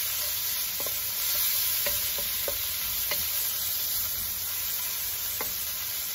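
Sliced onions and shredded carrots sizzling and softening in sesame oil in a wok, stirred with a wooden spatula that gives a few light scrapes and taps against the pan.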